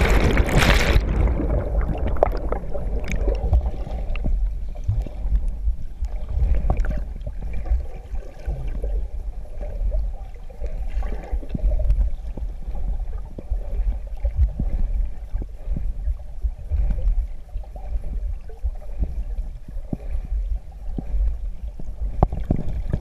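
Water splashing against a submerged action camera, then a muffled underwater rumble and gurgling with soft scattered clicks.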